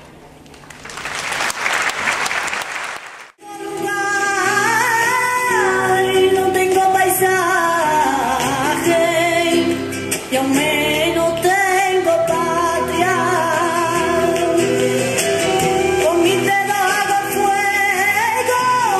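Crowd applause for about three seconds, cut off abruptly. After a short gap a song starts, a singer's melody gliding up and down over instrumental accompaniment.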